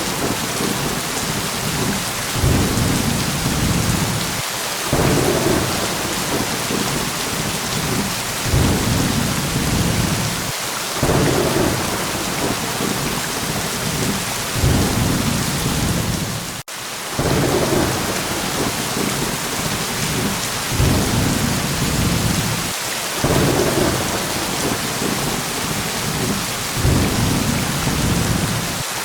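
Steady heavy rain hissing, with low rolling thunder rumbles swelling and fading about every two seconds. The sound cuts out for an instant a little over halfway through, like a splice in a looped recording.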